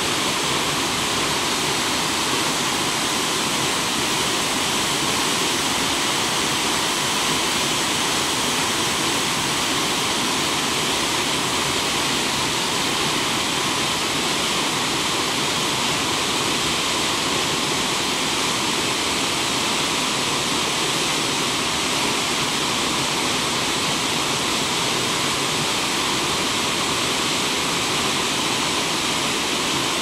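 Waterfall pouring down a rock face: a steady, unbroken rush of falling water.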